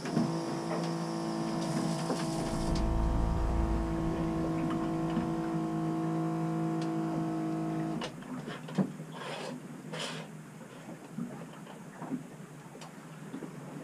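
A small electric pump hums steadily for about eight seconds, then cuts off suddenly. Scattered clicks and short rustling bursts follow.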